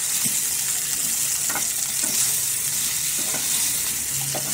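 Cauliflower florets frying in hot oil in a nonstick pan, a steady sizzle, with a few scrapes of a wooden spatula stirring them.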